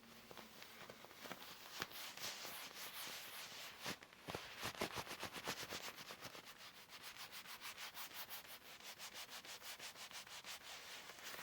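Leather gloves being rubbed together with a soft, even rustle. About four seconds in it turns into quick, evenly spaced strokes or taps of the leather, about five a second.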